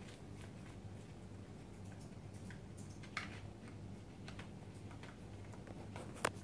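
Faint scattered clicks and light rustles of a dog nosing and chewing at a folded cardboard toilet-roll tube on a tiled floor to get the treat inside. There are two sharper clicks, one a little past halfway and one near the end, over a low steady hum.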